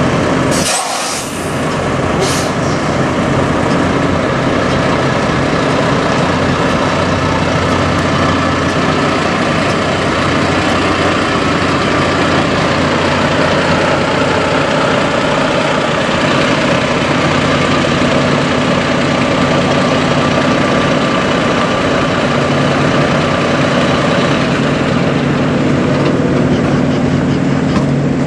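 Semi truck's diesel engine running steadily, with a short hiss of air about half a second in and another about two seconds in. The engine note deepens and strengthens near the end.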